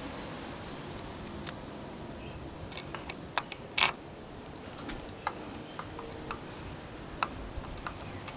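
Scattered light clicks and taps of small metal tools and parts being handled, over a steady hiss. The loudest is a short rattle just before four seconds in.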